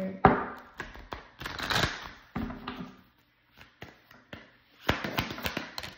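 Tarot cards being handled: a run of short taps and card flicks. They are busiest in the first two seconds and again near the end, with a brief lull in the middle.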